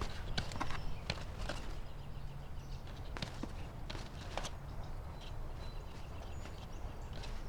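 Great spotted woodpecker pecking: irregular sharp knocks in short clusters, over a low steady rumble.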